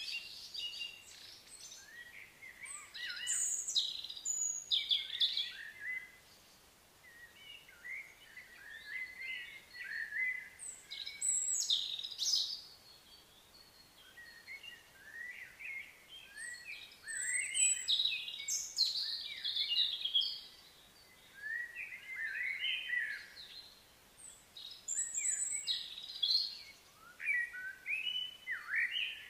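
Small birds chirping and twittering, quick high notes in clusters with short lulls between.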